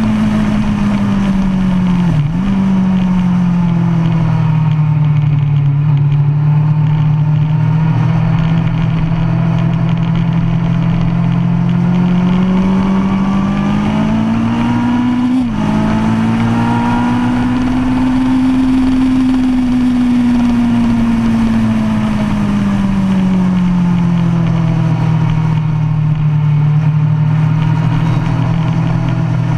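2005 Kawasaki Ninja ZX-10R's inline-four engine running hard through a DanMoto racing exhaust, heard from on the bike at track speed. The engine note sinks and climbs slowly with the throttle through the corners, and breaks off for an instant twice, about two seconds in and about halfway through.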